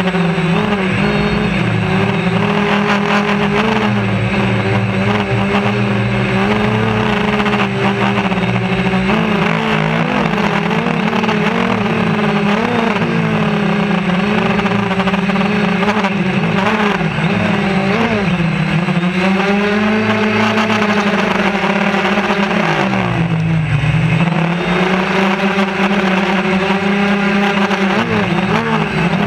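Quadcopter drone's electric motors and propellers whining steadily in flight, heard up close. The pitch sags and recovers several times as the throttle changes, most deeply about four-fifths of the way through.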